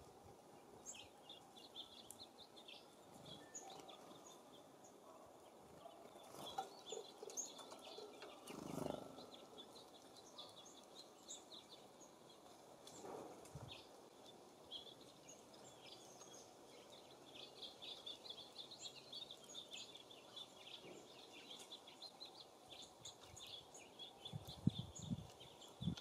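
Faint chirps of small songbirds, many short high notes scattered throughout and busiest in the second half, over a low wind haze. A few low bumps come near the end.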